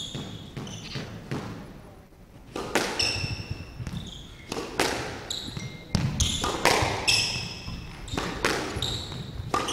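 Squash rally: the ball cracks off the rackets and the court walls again and again, about once a second, while the players' shoes squeak on the wooden court floor between shots.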